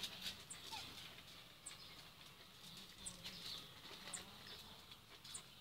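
Faint, short, high chirps of a small bird, repeated about once a second over quiet outdoor background.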